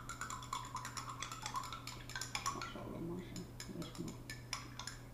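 A small spoon stirring in a cup of water, with rapid, irregular clinks and scrapes against the cup's sides as powder is mixed in to dissolve.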